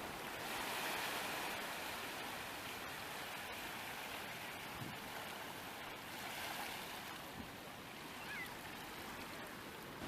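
Ocean surf washing on the shore: a steady rushing noise that swells gently a couple of times.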